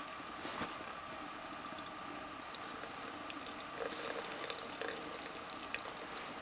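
Water boiling steadily, a continuous hiss with a faint steady tone and a scatter of small ticks.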